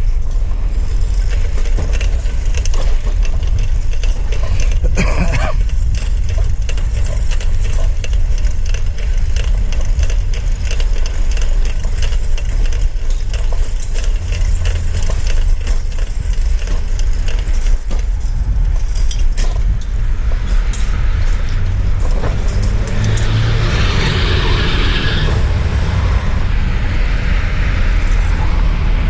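Steady wind buffeting on a head-mounted camera microphone over street traffic noise, with a louder hissing rush for a few seconds about three-quarters of the way through.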